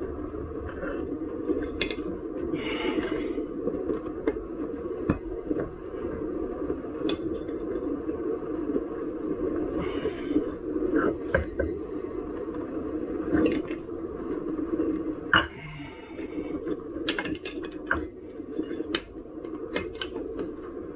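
Hand tools clicking, knocking and scraping against the wheel and tyre of an electric unicycle during a tyre change, in scattered irregular strokes with a few short scrapes, over a steady low hum.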